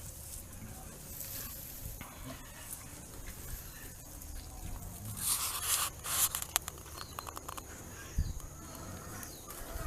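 Rustling and scraping in deep wood-chip bedding of a pig pen, with scattered clicks, a louder rush of noise about five seconds in and a dull thump near the end.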